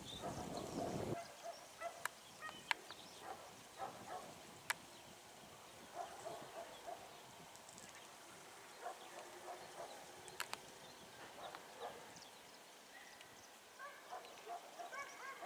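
Faint calls of waterbirds: scattered short honking notes and a few sharp, clicky calls. There is a brief rumble of noise in the first second.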